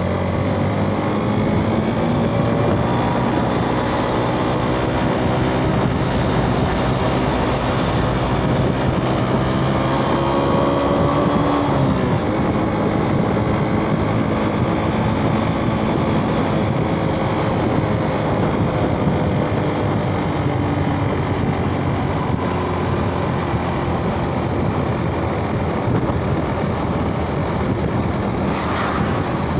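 Suzuki Smash 110 cc four-stroke single-cylinder motorcycle engine running under way, heard from on the bike over wind and road noise. The revs climb, then fall back about twelve seconds in at an upshift, and hold steadier after that. There is a brief sharp sound near the end.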